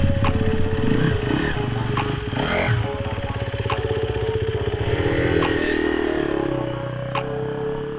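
GasGas dirt bike engine running at low revs, with small throttle changes as the bike rolls along at walking pace.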